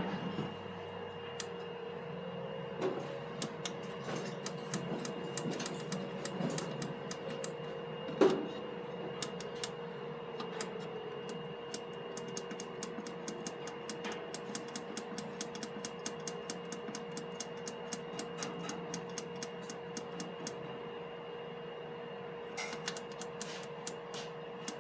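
Lift equipment clicking rapidly, about three sharp clicks a second for much of the time, over a steady electrical hum, with one louder knock about a third of the way through.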